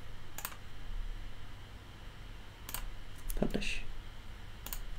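A few sharp computer mouse clicks spaced apart, two of them close together near the middle.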